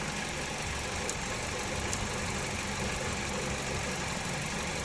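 Hyundai Getz four-cylinder petrol engine idling steadily, with two faint sharp clicks about one and two seconds in.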